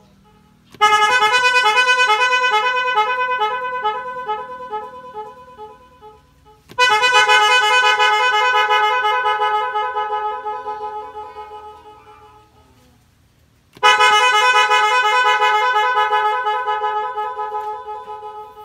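Aftermarket 18-tone musical car horn ('magic horn') playing a short electronic melody three times, set off by presses on the steering-wheel horn pad. Each melody starts abruptly and fades out over about five seconds.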